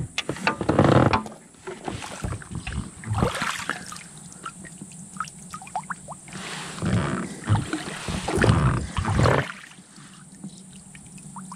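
Irregular knocks, clunks and rustling of an angler moving himself and his fishing gear to a new spot on the river, heaviest about a second in and again from about seven to nine seconds in.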